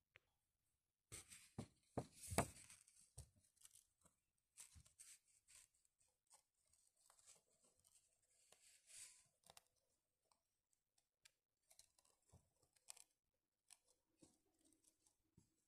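Faint scratching and rubbing of a wetted match head worked over paper, among scattered clicks and knocks. The loudest is a quick cluster of knocks about two seconds in.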